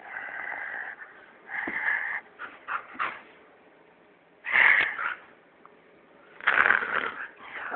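Siberian husky vocalizing in about five short whining, talking calls with gaps between them, the loudest about halfway through, while being played with.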